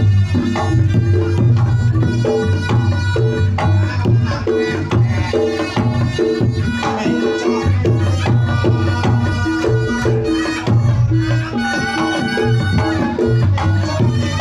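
Reog Ponorogo music played loud through a sound system: drums and gong-chime pulses in a steady, driving rhythm, with a wavering melody line above them.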